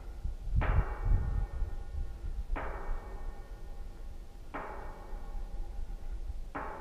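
A metal object struck like a gong four times, about every two seconds, each blow ringing out with several tones and fading away. Wind rumbles on the microphone underneath.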